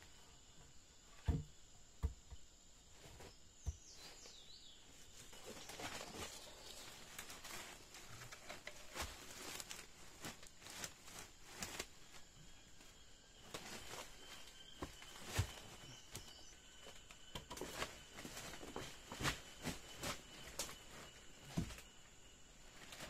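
Scattered light knocks, snaps and rustling from people moving about and handling wood and branches, a handful of knocks louder than the rest. A faint, steady, high-pitched insect sound runs through the second half.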